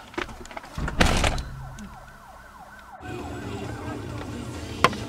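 Police siren in a fast yelp, its wail falling again and again in quick repeats. A thump comes about a second in and a sharp tap near the end.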